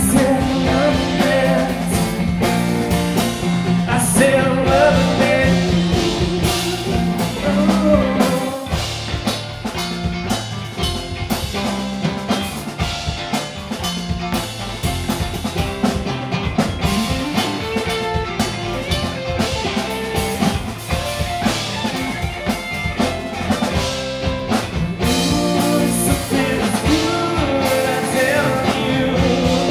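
Live rock band playing loud and steady: two Stratocaster-style electric guitars, bass guitar and a drum kit.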